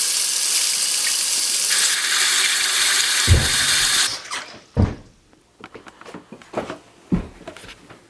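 Kitchen tap running hard into a sink, the rush of water changing a little partway through and shutting off about four seconds in. Then come a few dull knocks and light clatter of dishes being handled.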